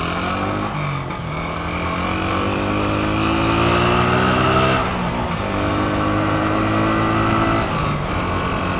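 Honda CG Fan 125's single-cylinder four-stroke engine accelerating under way, its pitch rising steadily, dropping at a gear change about five seconds in, then rising again before dropping once more near the end.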